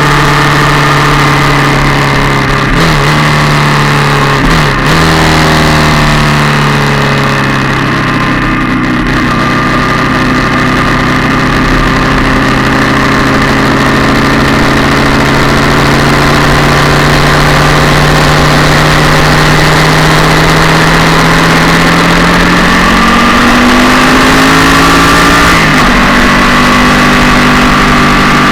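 Yamaha MT-07's parallel-twin engine running under way, heard close to the engine. There are gear changes about three and five seconds in, then the engine speed drops, climbs slowly for a long stretch, and there is another gear change near the end.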